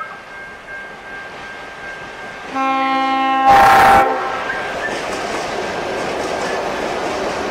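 S-class diesel locomotives leading a grain train sound their horn once for about a second and a half, a chord of several notes that is loudest in its last half-second. Then the locomotives and loaded grain wagons rumble past close by, wheels clicking over the rail joints.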